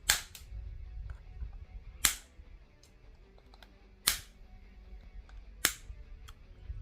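Side cutters snipping off the protruding ends of steel plastic-welding staples: four sharp snaps about two seconds apart.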